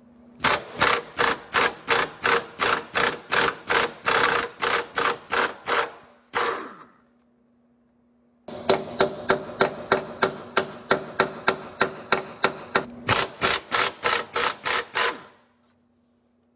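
A hammer striking metal in two fast runs of even blows, about three to four a second, each run lasting several seconds, with a pause between them. The blows ring metallically.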